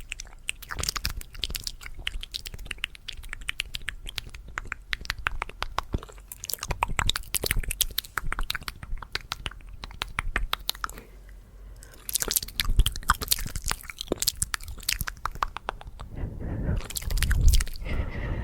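ASMR mouth sounds made close to the microphone: rapid clicks, pops and smacks of the lips and tongue in quick runs. There is a brief pause about eleven seconds in.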